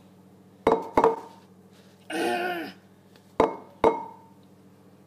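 Egg tapped against the rim of a bowl to crack it: two pairs of sharp knocks, about three seconds apart, each pair ending in a short ring from the bowl.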